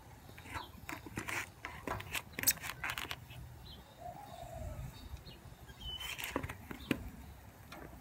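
Metal tongs clicking and plastic wrapping crinkling as raw sausages are lifted from a tray and set on a grill grate, in a quick run of clicks and rustles over the first three seconds and a few more about six seconds in.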